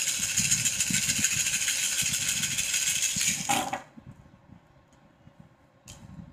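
Cowrie shells shaken in cupped hands, a dense rattle lasting nearly four seconds, then cast onto the table with a short clatter; a few faint clicks follow near the end as the shells are handled.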